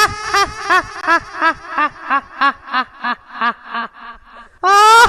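High-pitched witch-like cackling laugh in the manner of a chudail: a run of 'ha' pulses, about three a second, sinking in pitch and fading, then a second cackle begins with a loud held cry near the end.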